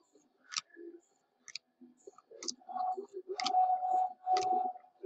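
Trading cards being handled and flipped through by hand: sharp clicks about once a second as cards snap against each other, with louder rubbing and shuffling of card stock in the second half.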